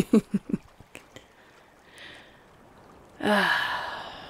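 A young woman's short laugh of four or five quick falling pulses. About three seconds in comes a loud, breathy 'ahh' sigh that fades away over about a second.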